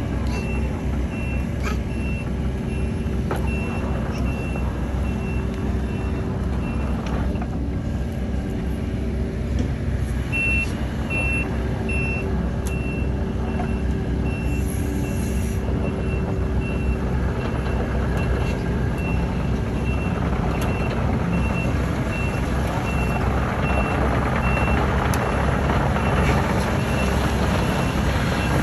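Compact tracked excavator running and travelling on its tracks, its diesel engine humming steadily while the travel alarm beeps repeatedly. The engine and track noise grow louder over the last several seconds as the machine comes closer.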